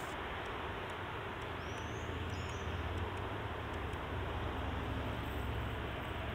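Steady outdoor background hiss with a low rumble that swells slightly in the middle, and a brief, faint high-pitched chirp about two seconds in.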